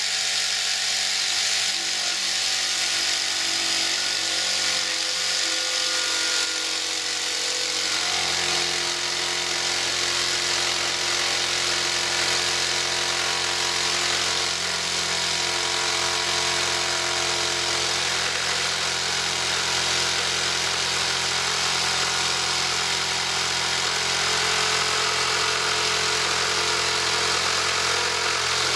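Electric jigsaw mounted upside down under a table, running steadily as its blade saws through a piece of brass pushed into it; the hum shifts and grows deeper about eight seconds in.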